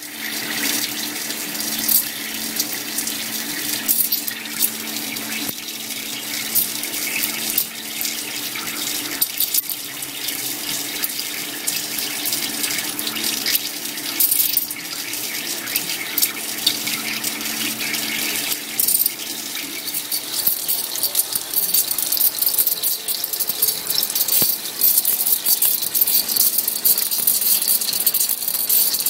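Agie DEM 315 wire EDM machine running, with a steady hiss of flushing water, dense crackling clicks and a low hum that fades out about two-thirds of the way through.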